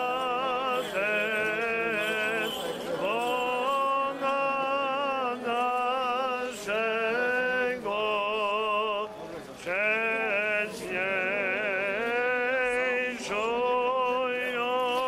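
A male voice chanting an Orthodox liturgical chant in held, slightly wavering notes, phrase after phrase with short breaks between them.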